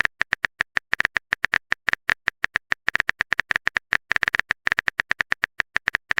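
Phone keyboard typing clicks: quick, irregular taps, roughly seven or eight a second, as a text message is typed out.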